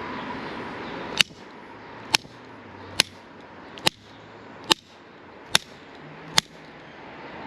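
Channel-lock pliers striking soldered copper pipe fittings in a steady series of seven sharp metallic blows, a little under a second apart. The blows are a stress test meant to crack the solder joints, which are still holding.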